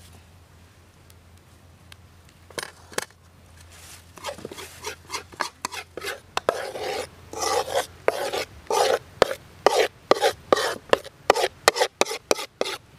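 Metal spatula scraping and stirring a sticky brown mixture around a steel wok, in repeated strokes about two a second. The strokes start after a quiet opening and a few clicks, and grow louder.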